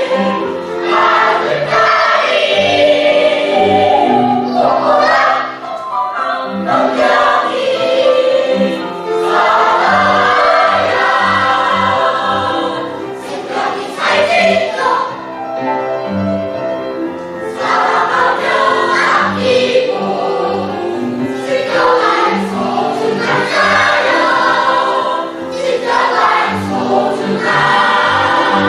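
A family choir of parents and children singing a song together in chorus.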